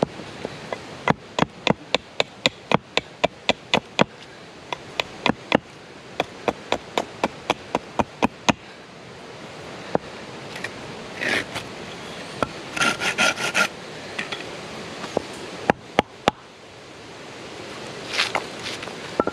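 A carved wooden handle being knocked down into a green-wood mallet head: a fast, even run of wooden knocks, about three a second, for the first eight seconds or so. Then a knife shaving the protruding end of the handle, a few more knocks, and a hand brushing wood shavings across the top of the stump near the end.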